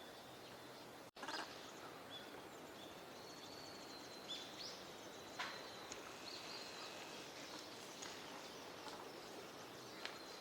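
Faint steady outdoor background noise with a few thin, high bird calls and occasional short clicks; the sound cuts out for an instant about a second in.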